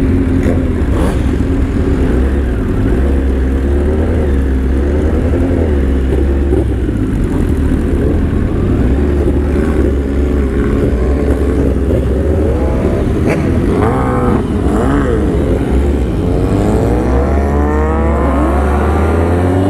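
Sport motorcycle engines running and revving, the pitch wavering up and down, with one engine climbing steadily in pitch near the end as it accelerates.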